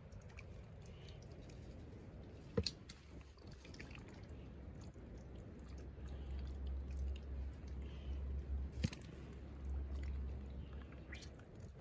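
Hands squelching and sloshing through soft wet mud, groping for snakehead fish buried in it, with two sharp wet snaps: one a few seconds in and one about three quarters of the way through.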